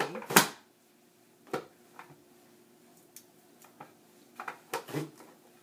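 Vidalia Chop Wizard plastic hand chopper being pushed down through zucchini: one loud chop about half a second in, a few lighter plastic clicks, then a quick cluster of knocks near the end.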